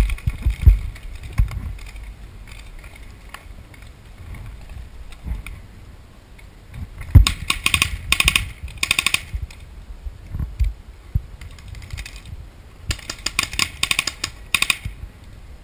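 Paintball markers firing in two rapid strings of sharp pops, one in the middle and one near the end, with dull bumps on the microphone in the first second or so.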